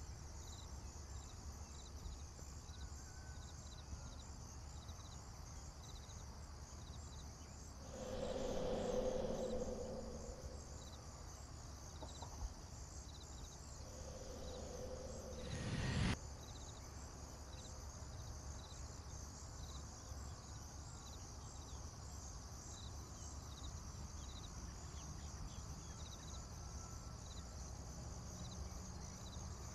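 Crickets chirping steadily in a pulsing high trill. About 8 s in a low sound swells up and fades, and from about 14 s a second swell builds and ends in a sharp hit about 16 s in.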